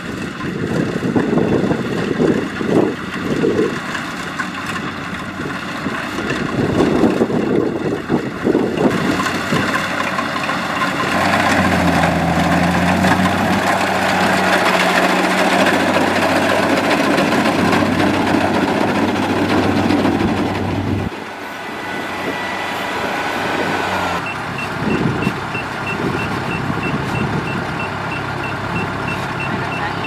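Kubota DC70 Plus rice combine harvester running, its diesel engine and threshing machinery droning steadily, with gusts of wind on the microphone at first. Near the end, a rapid, evenly repeating high electronic beep sounds over the machine.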